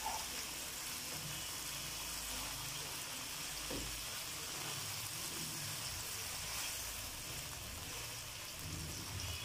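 Chicken pieces sizzling steadily in a little oil in a nonstick wok, frying until cooked through.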